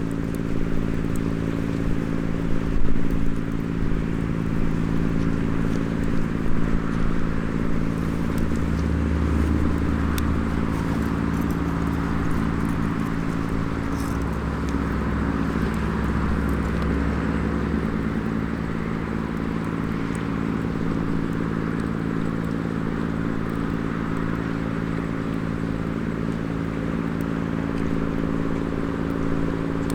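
Small wood fire in a mini fire pit crackling with scattered pops over a steady low engine hum; a deeper rumble swells from about 8 to 18 seconds in.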